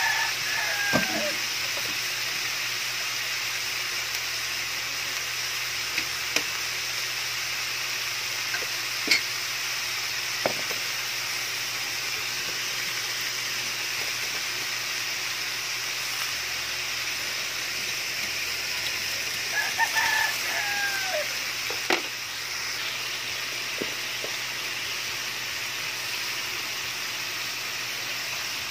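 String beans frying in a wok with a steady sizzle, and a few sharp metal clicks from the spatula against the pan. A rooster crows twice, once at the start and again about two-thirds of the way through.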